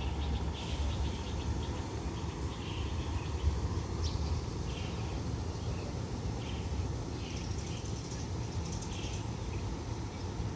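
Low, steady rumble of a diesel locomotive running light, uncoupled from its train, with short bird chirps recurring throughout.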